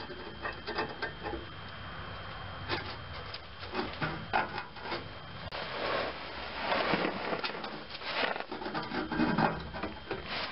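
Exhaust pipe ends being slid and worked into a sealant-coated butt-splice union sleeve, the metal rubbing and scraping in repeated irregular strokes. The strokes are loudest about seven seconds in.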